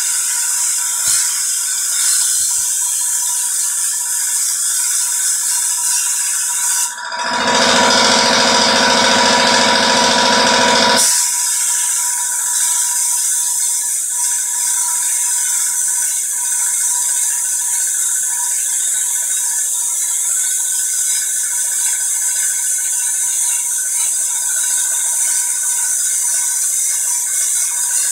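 Sandblasting gun spraying abrasive onto a glass panel to frost it: a loud, steady hiss with a faint steady whine underneath. About seven seconds in, the sound turns deeper and fuller for about four seconds, then goes back to the thinner hiss.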